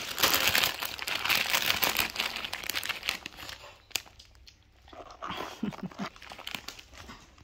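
Loud crinkling and rustling right at the microphone for about three and a half seconds, then dying down, with a few short voice sounds near the end.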